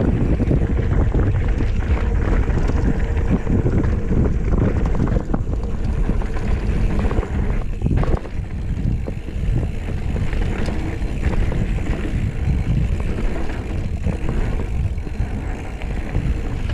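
Wind rushing over the microphone while a Kona Big Honzo hardtail mountain bike rattles and clatters over rough, rocky ground at speed, with a brief lull about eight seconds in.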